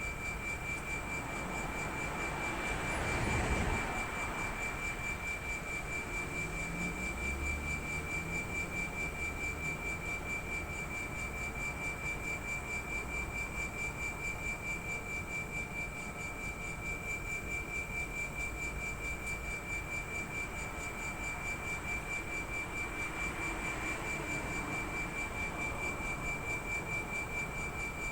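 Air-conditioner outdoor unit compressor giving off a steady high-pitched whine with fainter hum tones beneath it, the abnormal noise being investigated. A brief swell of rushing noise rises over it about three seconds in, and a fainter one near the end.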